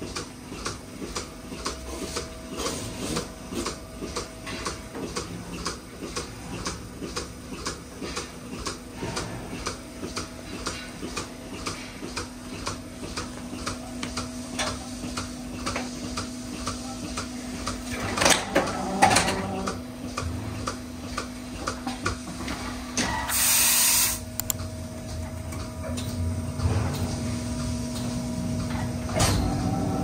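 Automatic milking robot running under a cow: a steady machine hum with rhythmic clicking about twice a second. About two-thirds of the way through comes a loud hiss lasting about a second.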